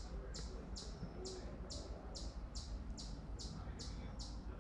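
A bird chirping steadily in the yard trees: short high chirps repeated evenly about twice a second, over a low rumble of wind on the microphone.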